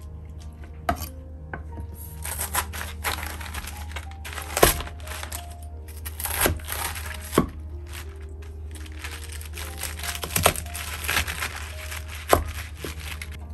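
Kitchen knife cutting through napa cabbage on a wooden cutting board: crisp crunching and tearing of the leaves, broken by several irregular sharp knocks as the blade meets the board. Quiet background music underneath.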